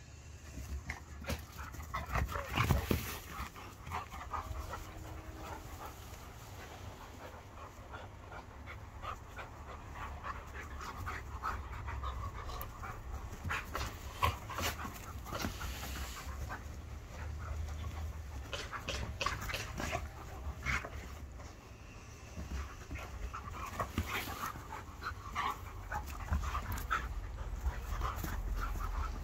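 Two dogs, an Irish Setter and a Border Collie cross, play-wrestling, panting, with many short sharp clicks and scuffles scattered throughout.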